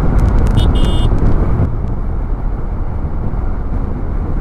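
Wind rushing over the microphone and a TVS Ntorq 125 scooter's engine running at road speed. A brief high ringing sounds about a second in.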